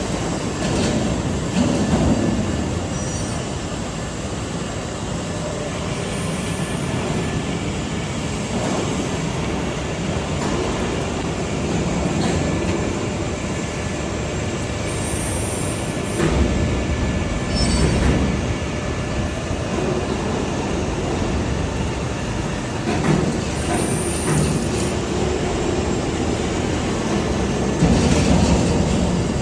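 CNC hybrid press brake working through its bending cycles: a steady machine rumble with scattered clunks, and a short high hiss that comes back about every nine seconds.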